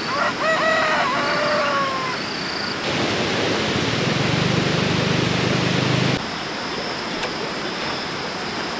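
A rooster crowing once: a few short rising notes and then a long held note that falls away. After it comes a loud, steady rushing noise with a low hum underneath, which cuts off abruptly about six seconds in.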